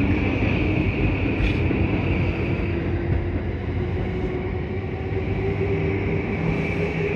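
JR East E235-1000 series electric multiple unit pulling out along the platform: a steady rumble of wheels on rail with the inverter and traction motor whine rising slowly in pitch as the train gathers speed.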